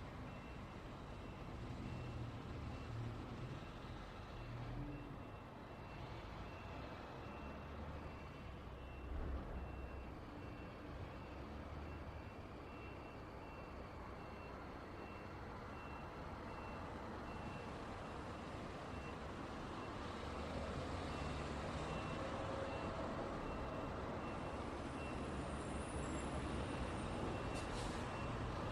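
Road traffic rumbling past, with a reversing alarm beeping evenly in a single high tone. The traffic grows louder in the last several seconds.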